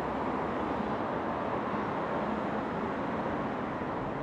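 Steady city traffic noise, an even rush with no distinct events standing out.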